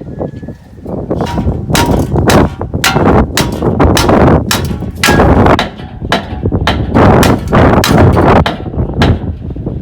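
Loud, irregular metallic banging: a rapid series of heavy knocks and clangs over several seconds.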